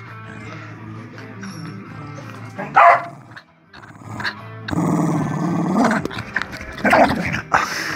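Dog play-growling while tugging on a rubber ring toy, in irregular bursts; the longest lasts about a second midway, with sharper short bursts near the start and the end. Background music plays underneath.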